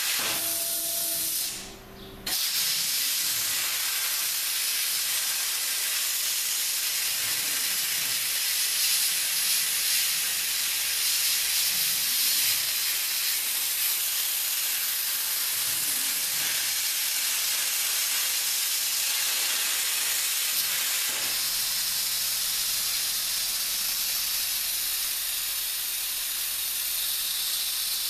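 CNC plasma cutter's arc hissing steadily as the torch cuts through sheet metal, with the rush of its compressed air. The arc cuts out briefly about two seconds in, then strikes again and runs on.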